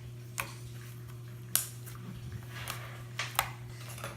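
Slime being squished by hand, giving a handful of sharp little clicks and pops, the loudest about a second and a half in. A steady low hum runs underneath.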